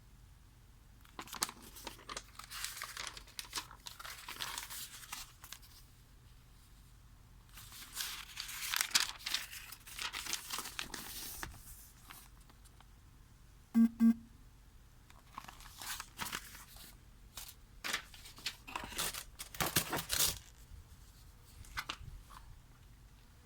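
Packaging of a heat gun being unwrapped: crinkling, rustling and tearing in irregular bursts. About midway, a short buzzy tone sounds twice in quick succession.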